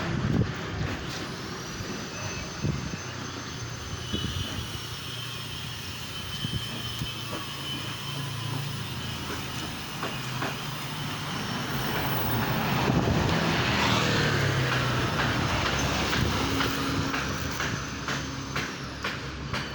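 Steady vehicle running noise: a low engine rumble with a faint high whine over it, growing louder for a few seconds around the middle.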